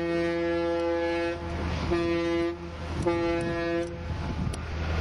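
Ship's horn of the Coast Guard icebreaking tug Neah Bay sounding three blasts: a long one that ends about a second and a half in, then two shorter ones. A steady low hum runs underneath.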